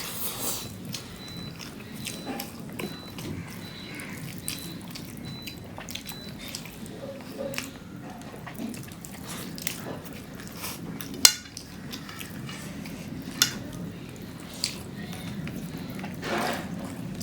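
Two people eating rice and fish curry: wet chewing and handling of food, with scattered sharp clinks off the plates, the loudest about eleven seconds in.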